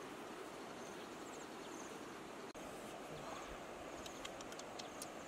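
Steady outdoor background hiss with faint, short high chirps scattered through it, and a quick run of sharp high ticks about four seconds in.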